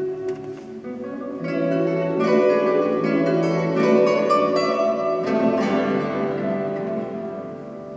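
Solo classical guitar playing: plucked notes and chords, louder from about a second and a half in, then dying away toward the end.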